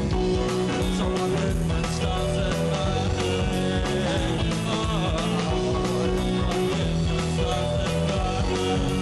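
A rock band playing live: electric guitar, bass guitar and a steady drum beat, with a male voice singing into a hand-held microphone.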